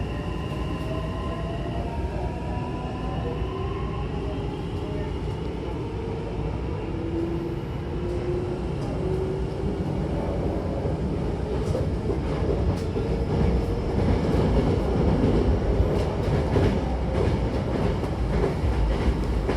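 Hankyu Takarazuka Line electric train running along the track: motor whine rising in pitch as it picks up speed, over a steady rumble. In the second half the running noise grows louder, with sharp rail-joint clicks.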